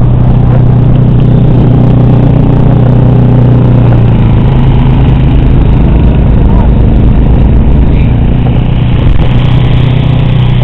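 Snowblower's small engine running steadily at close range, a low drone that shifts slightly in pitch about four and eight seconds in, the machine labouring as it works through deep snow.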